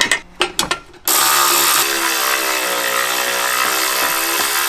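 Cordless electric ratchet running, driving in a bolt. It starts about a second in with a steady motor whine that holds to the end, after a few light clicks of parts being handled.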